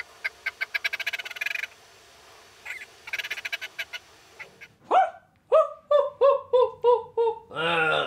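Red grouse call as sung by a human voice and sped up to bird speed: two quick stuttering rattles, then a rising note followed by a string of about six clipped, falling calls, ending in a short rough burst.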